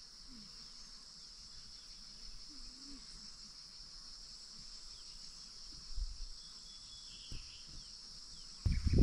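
Faint, steady, high-pitched insect chorus, with a soft low bump about six seconds in. Loud close-up bumping noise starts just before the end.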